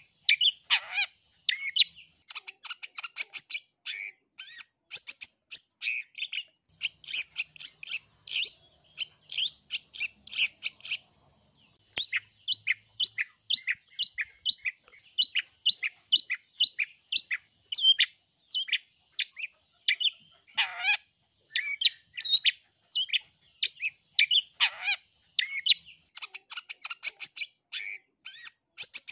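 Long-tailed shrike (cendet) singing a rapid, chattering run of short chirps and trills, several notes a second. In the middle it repeats one note evenly for a few seconds, and later it gives two longer calls that sweep downward.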